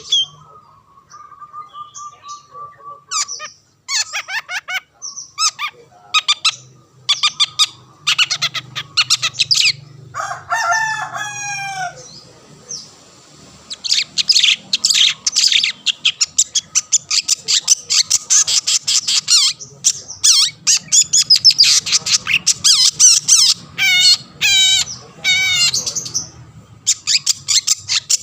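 Long-tailed shrike (cendet) singing continuously in rapid runs of high, quick chirps and trills, with a short stretch of lower, bending calls about ten seconds in.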